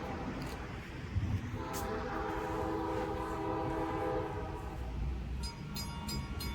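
A freight locomotive's K4 multi-chime air horn sounds one long chord of about three seconds over the low rumble of the train. Near the end a mechanical locomotive bell starts ringing, about three strikes a second.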